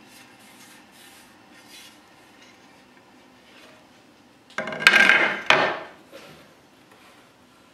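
A brief rough scrape of wood rubbing on wood, about a second and a half long, starting a little past halfway and renewed sharply near its middle, among quieter handling sounds.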